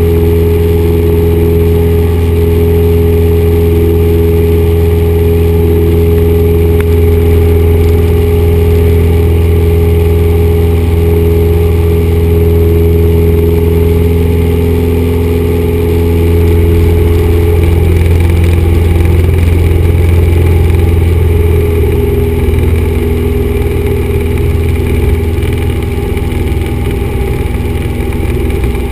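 1974 Cessna 172's four-cylinder piston engine and propeller droning steadily in cruise flight, heard inside the cockpit. The drone turns rougher a little over halfway through and eases slightly near the end.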